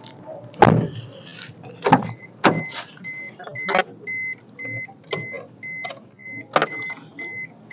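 Car's warning chime beeping evenly, about three beeps a second, starting about two seconds in while a car door stands open. Several sharp thuds sound over it, the loudest two near the start.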